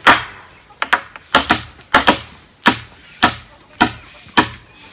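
A hammer nailing a timber crossbeam to a wooden post: sharp blows at about two a second, with a few lighter quick taps in between during the first second and a half.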